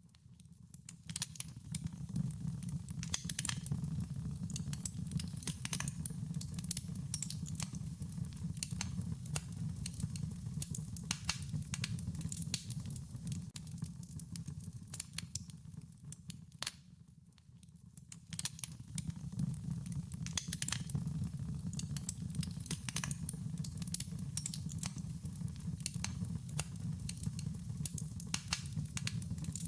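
Wood fire crackling: many small pops and snaps over a low, steady rumble of the flames. The sound fades briefly just past halfway, then rises again.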